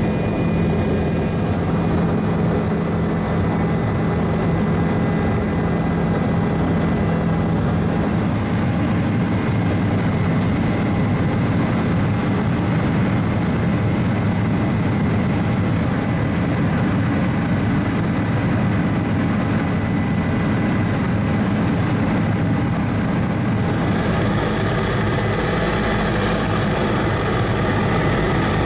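Helicopter in flight, heard from inside the cabin: a steady, loud drone of engine and rotor with a few steady whining tones. Its character shifts slightly about eight seconds in and again near the end.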